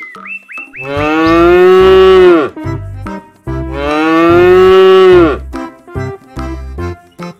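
Cow mooing twice: two long moos, each sliding down in pitch at the end, over a light background tune with a bouncing bass.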